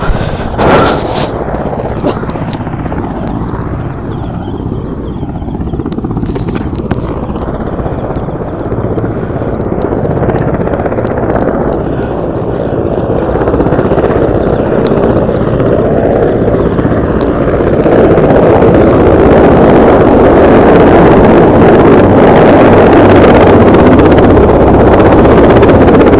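Helicopter flying low nearby, a steady rotor and engine noise that grows louder about two-thirds of the way through as it comes closer.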